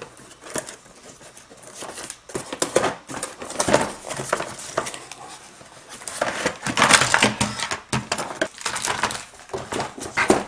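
Cardboard toy box being opened and its plastic playset parts taken out: irregular scraping, rustling and clattering of cardboard and plastic, with a plastic bag crinkling, loudest about seven seconds in.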